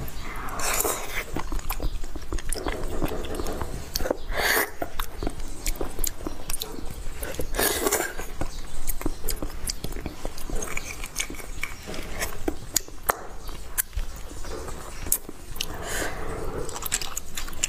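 Close-miked eating of beef bone marrow: wet chewing with many small clicks of the mouth, and a few longer slurps as the marrow is spooned out and sucked from the end of the bone, one of them about halfway through.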